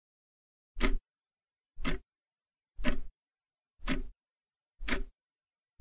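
Countdown timer sound effect: short clock-like ticks, one a second, counting down the answer time for a quiz question.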